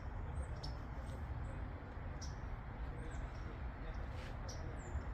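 Short, high chirps of small birds, scattered about one or two a second, over a steady low rumble.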